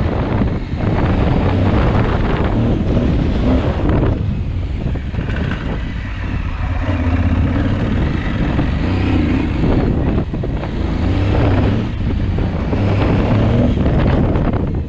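Aprilia Tuareg 660's parallel-twin engine running under way off-road, its note rising and falling with the throttle, with wind buffeting the microphone.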